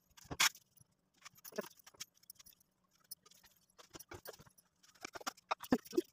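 Hands pressing and patting small balls of samosa dough flat on a floured wooden board: scattered soft pats, taps and light clicks.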